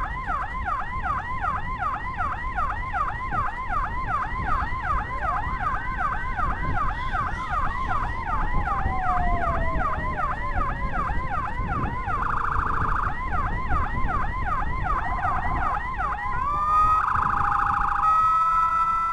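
Escort motorcycle's electronic siren sounding a fast yelp, about three rising sweeps a second, over the low rumble of the ride; in the middle a separate tone glides slowly downward. About twelve seconds in the siren switches to steady tones, then near the end to stepped alternating tones.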